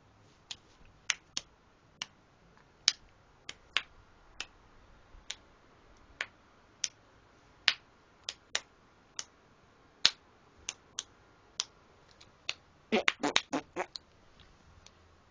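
Finger snapping: single sharp snaps at an uneven pace of about one or two a second, then a quick flurry of snaps about thirteen seconds in.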